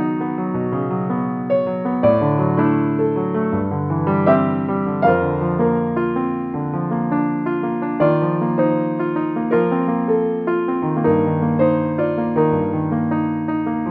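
Background piano music, gentle keyboard notes sustained and overlapping in a calm flowing melody.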